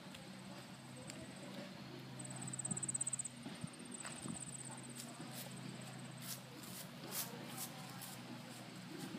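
Footsteps and phone handling noise as someone walks quickly over a stone path and onto grass, with a thin, high trill that is loudest about two to three seconds in.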